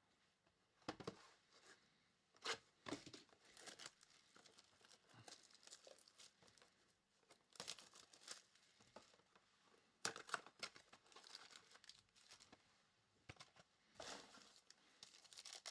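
Trading-card pack wrappers being torn open and crinkled: a few short, faint rips and crinkles with quiet gaps between them.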